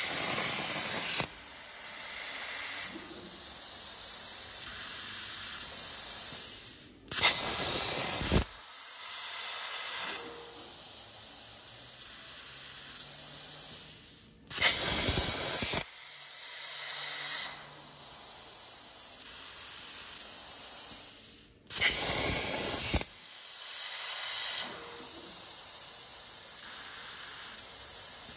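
CNC plasma cutter torch, run from a Hypertherm 45 plasma power source, cutting holes in thin mild steel plate: a steady hiss of the plasma arc and air. About every seven seconds the arc cuts out briefly, then fires again with a louder hiss for a second or so as it pierces the next hole, four pierces in all.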